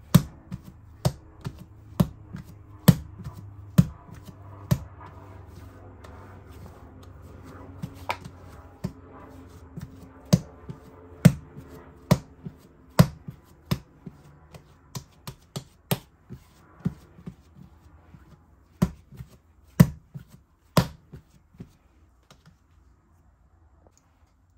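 A series of sharp, irregular taps and knocks, roughly one or two a second, stopping shortly before the end, over a low steady hum.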